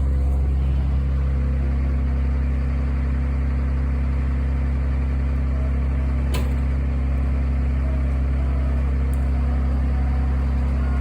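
Medium-duty wrecker's engine running steadily at a low, even pitch, with a single sharp click about six seconds in.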